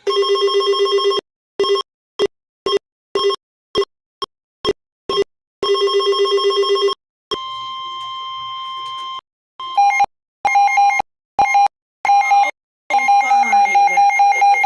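A sequence of electronic alert tones. A trilling telephone-style ring sounds twice, with short pips about two a second between the rings, then a steady beep of about two seconds, then a run of rapid pulsed beeps at a different pitch.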